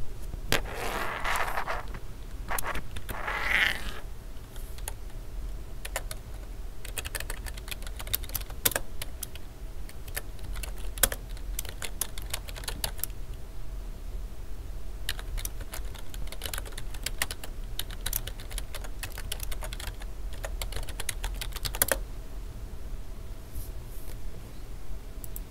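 Typing on a computer keyboard: irregular keystrokes, some in quick runs and some single, over a steady low hum. Two brief soft hissing noises come in the first four seconds.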